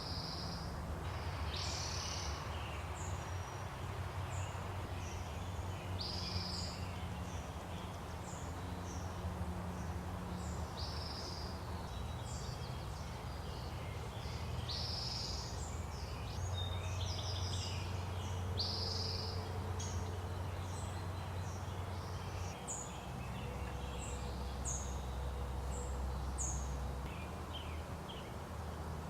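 Wild birds singing in woodland: many short, high chirps and quick downward-sweeping calls, repeated every second or two, over a steady low rumble.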